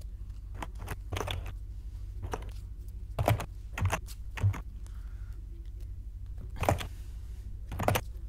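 Trading cards being handled and laid down on a table: a series of about seven separate taps and soft thumps, irregularly spaced, over a steady low hum.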